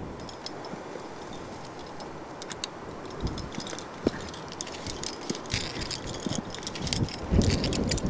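Metal climbing hardware on a harness rack, carabiners and aid gear, clinking and jangling in many small light clicks as the climber moves on the wall. Wind buffets the microphone near the end.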